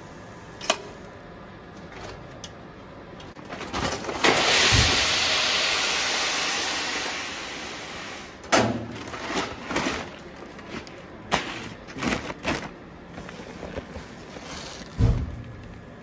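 Polished sake rice pouring out of a hopper in a rush: a loud hiss that starts suddenly about four seconds in and dies away over about four seconds. It is followed by scattered knocks, rustles and a thump as the rice sack is handled, over the steady noise of the polishing machinery.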